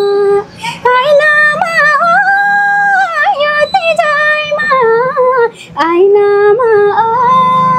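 A young woman singing a Nepali Teej folk song solo in a high voice, with long held notes that bend and waver between lines, breaking briefly for breath about half a second in and again near the middle.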